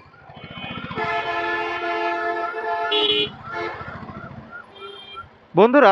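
A vehicle horn sounds one steady blast of about two seconds over the low, even pulsing of an engine in slow town traffic.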